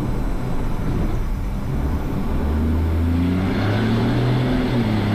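KAMAZ rally truck's diesel engine running hard under load, heard from inside the cab over a haze of drivetrain and cab noise. The engine note strengthens about two seconds in and climbs in pitch soon after.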